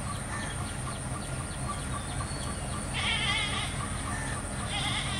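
A diesel locomotive pulling a passenger train slowly through a station, with a low, steady rumble. Two short, wavering high-pitched calls rise above it, the louder one about three seconds in and another near the end.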